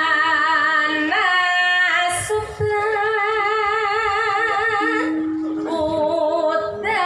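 A woman singing long held notes with a wide vibrato through a stage PA, pausing briefly a little over two seconds in. A steady lower note sounds under her at the start and again about five seconds in.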